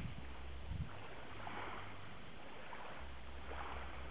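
Small waves lapping on a pebble beach, washing in softly about twice, over a low rumble of wind on the microphone.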